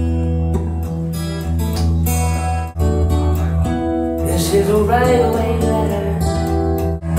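A song played through the KEF XIO soundbar: plucked acoustic guitar over a strong, steady bass line, with a singing voice coming in about five seconds in.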